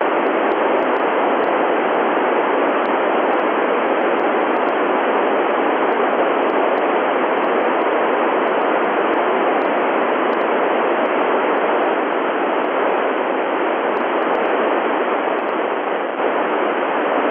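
Steady, loud FM radio receiver hiss on the ISS 145.800 MHz downlink, starting abruptly: the space station's transmitter has unkeyed after the astronaut's "over", so the open-squelch receiver passes only noise between transmissions.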